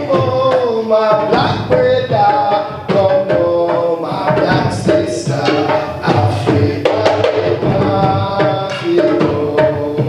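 Music with steady hand drumming under a gliding melody line.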